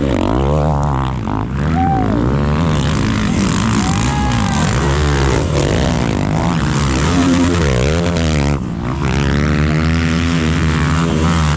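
Off-road vehicle engine revving hard and repeatedly, its pitch rising and falling again and again, as the vehicle struggles through a stretch of trail where others are getting stuck. There is a short drop in the revving about eight and a half seconds in.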